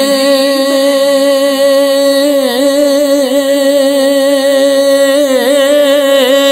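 Urdu naat sung by a male voice without instruments: one long held note, its pitch wavering slightly now and then.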